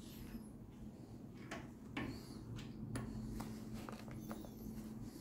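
Faint scattered clicks and knocks of a steel adjustable wrench being handled on a nut, under a faint steady hum.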